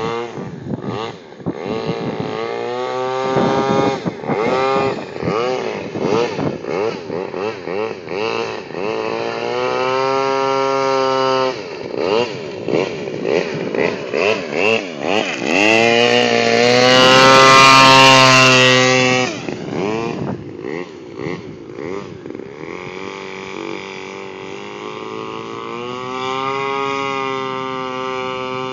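Radio-controlled airboat's small engine and air propeller running out on the water, its pitch rising and falling over and over as the throttle changes and the boat turns. Loudest for a few seconds just after halfway, as the boat passes close.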